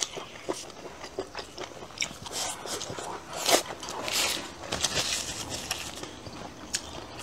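Close-miked chewing of a mouthful of food: a run of wet mouth clicks and lip smacks, the loudest about halfway through.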